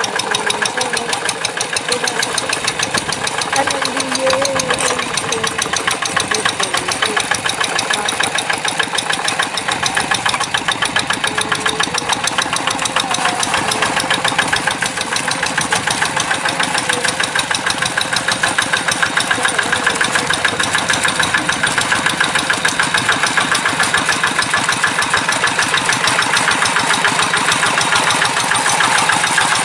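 Kubota RD85 single-cylinder diesel engine of a Quick G1000 Boxer hand tractor running steadily under load as the tractor plows a flooded rice paddy, with a rapid, even putter.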